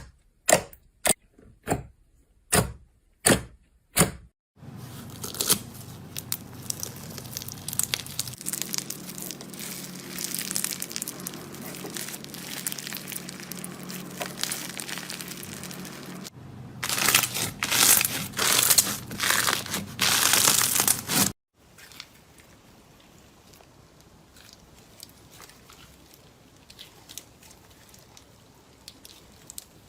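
Slime being handled: first a string of sharp pops, about two a second. Then comes a crinkly crackling as the slime is squeezed and pressed, loudest for a few seconds past the middle, before it cuts off and goes on more softly.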